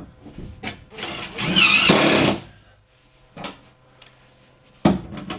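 Cordless drill whirring for about a second and a half, its pitch wavering as it drives a screw into the plywood, with a few short knocks before and after.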